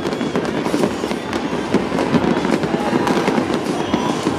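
Fireworks display: a dense, unbroken run of bangs and crackles.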